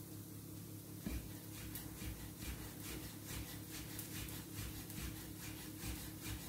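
Chef's knife slicing fresh mint leaves on a plastic cutting board: light, quick taps of the blade against the board, about two to three a second, starting about a second in, over a steady low hum.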